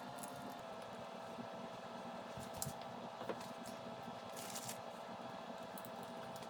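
Faint small clicks and short metal scrapes from screws being driven by hand into a KitchenAid stand mixer's gear housing, over a faint steady hum.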